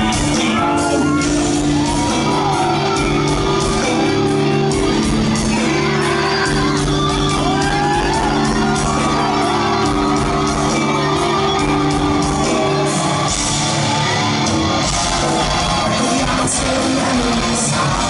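Live rock band playing loudly in a large hall: sustained distorted electric guitar and bass chords over drums, with voices shouting over the music.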